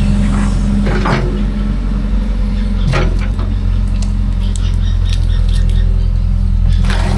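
Kobelco excavator's diesel engine running steadily under load while it clears brush, with a few sharp cracks and knocks about a second in, around three seconds in and near the end.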